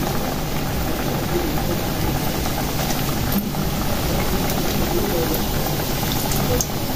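Momos deep-frying in hot oil in an aluminium kadhai: a steady, dense sizzle and bubbling as the freshly dropped dumplings cook.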